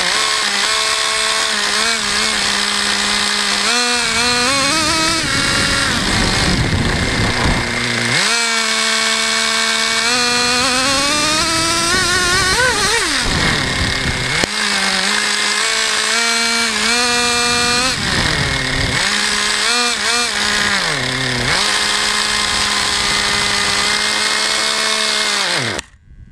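Traxxas Jato 3.3 RC car's small two-stroke nitro engine running, revving up and falling back over and over, then cutting off abruptly near the end.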